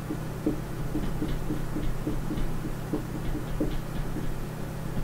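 Dry-erase marker writing on a whiteboard: a run of short, irregular squeaks and taps as letters are drawn, over a steady low hum.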